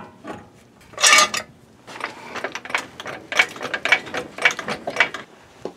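Hand ratchet wrench clicking through a steady series of short strokes, about two a second, with a louder clatter of tool handling about a second in.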